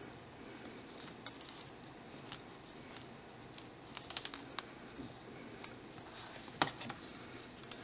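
Handling noise from fingers working a lump of polymer clay: faint, scattered clicks and taps over a steady hiss, with a quick run of them about four seconds in and the loudest tap at about six and a half seconds.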